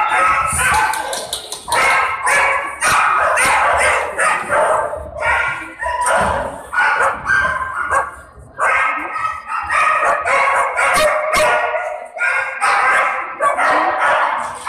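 Dogs barking over and over, almost without pause, with a brief lull about eight seconds in.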